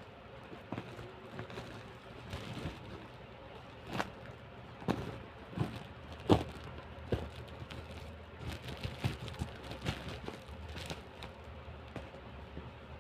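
Scattered knocks and taps of packaging and boxed items being handled and unpacked, irregular, the loudest about six seconds in, over a steady faint background hiss.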